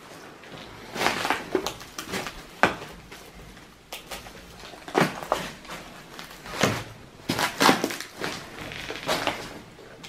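Rubble and debris (broken plaster, cardboard, plastic litter) crunching and clattering as it is disturbed, in irregular bursts of knocks and scrapes.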